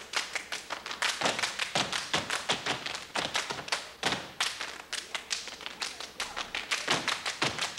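A step team stepping: shoes stomping on a stage floor in a fast, tight rhythm of several beats a second, with hand claps mixed in.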